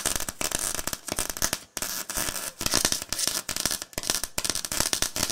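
Crackling sound effect of an animated end card: dense, irregular electric-sounding snaps and hiss, coming in bursts with brief gaps.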